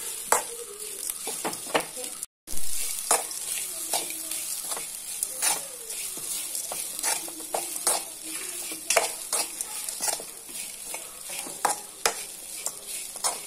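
A spatula scraping and knocking against a kadai as grated coconut with onion and curry leaves is stirred and roasted, in quick irregular clicks over a steady sizzle. The sound drops out for a moment about two seconds in.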